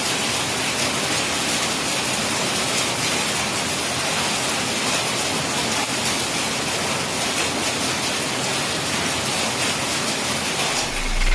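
Heavy rain mixed with hail pelting a corrugated metal roof: a dense, steady hiss with faint ticks of stones hitting. A deep boom cuts in right at the end.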